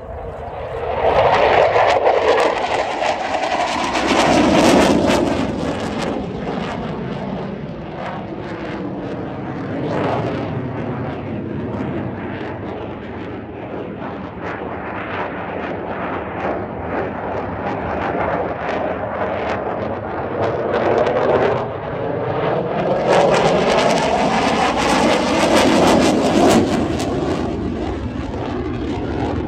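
Saab JAS 39 Gripen fighter's single jet engine at display power, a loud crackling rasp that swells and fades as the jet sweeps past. It is loudest about one to six seconds in and again around twenty-three to twenty-seven seconds, with slowly sweeping pitch changes as it manoeuvres.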